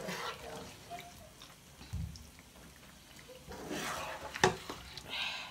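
A spoon stirring fried fish through thick tomato stew in a pot, giving wet squelching and scraping. There is a sharp knock about four and a half seconds in.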